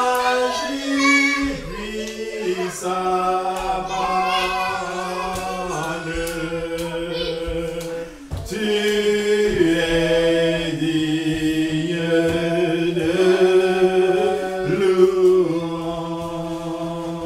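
A small group of voices singing an unaccompanied worship song, in long held notes, with a short break about eight seconds in.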